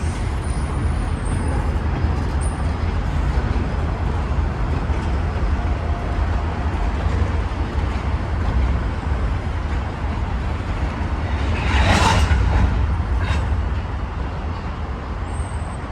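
Union Pacific switcher diesel locomotives running with a steady low rumble. About twelve seconds in comes a loud, brief hiss of released air, followed by a second, shorter hiss.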